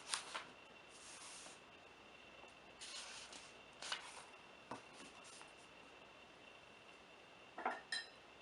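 A typewriter being handled between bursts of typing: a few scattered sharp clicks and two brief sliding rubs, with a faint steady high whine underneath.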